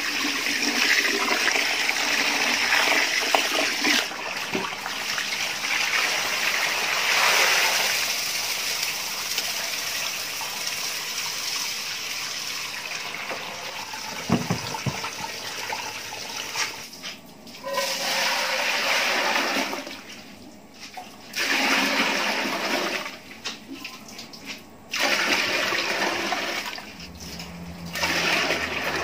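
Water from a hose running into a plastic bucket of rice and churning it as the rice is washed. Later, water is poured out and poured into a metal pot in several separate pours with short breaks between them.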